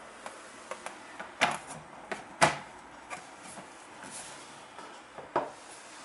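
Plastic trays and lid of a Doramini food dehydrator being stacked and set in place: a series of sharp plastic clacks and knocks, the loudest about two and a half seconds in, with two more close together near the end.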